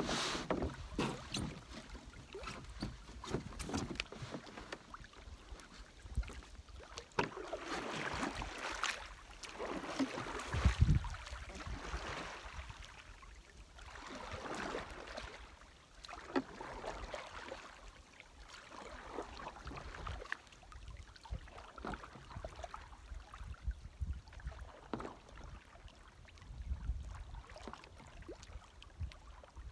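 Small waves lapping at a sandy lake shore, swelling and fading every couple of seconds, with the splashes of a canoe being pushed off and paddled away. One louder low thump about eleven seconds in.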